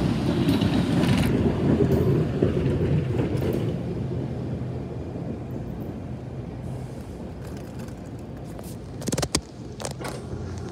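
NJ Transit Arrow III electric multiple-unit railcar passing over a grade crossing, its rumble loudest at first and fading away over the first four seconds. There are a couple of sharp knocks about nine seconds in.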